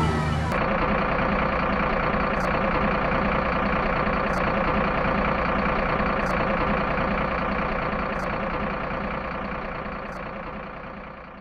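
Truck engine running steadily, fading away over the last few seconds.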